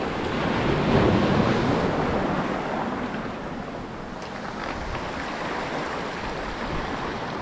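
Sea surf washing in and out among the boulders of a rocky shore, swelling about a second in as a wave surges through, with some wind buffeting the microphone.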